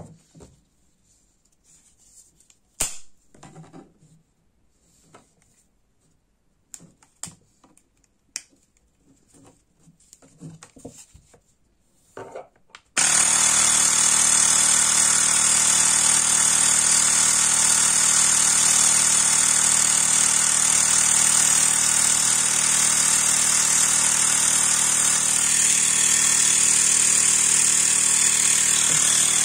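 A few scattered clicks and knocks as the balloon is fitted to the nozzle, then, about thirteen seconds in, the Xiaomi Mi Portable Electric Air Compressor switches on suddenly and runs steadily with a loud mechanical buzz, inflating a balloon.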